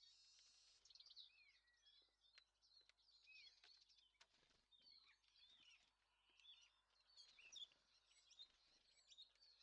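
Faint birdsong: several birds chirping and whistling in short, varied, overlapping phrases, with a few brief ticks among them.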